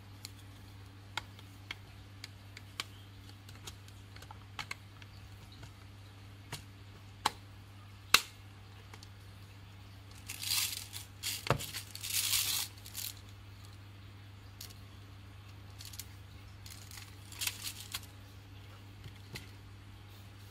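Hard plastic parts of a toy vending-machine candy dispenser being handled: scattered light clicks and taps, a sharp snap about eight seconds in, and rustling, scraping stretches from about ten to thirteen seconds in and again near eighteen seconds.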